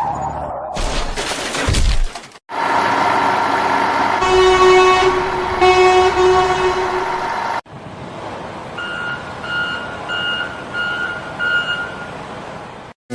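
Truck sound effects: a running engine with two long horn honks, then about five evenly spaced reversing beeps, the pieces cut together abruptly.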